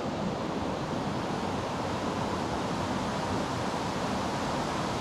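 Mountain stream rushing: a steady, even noise of flowing water.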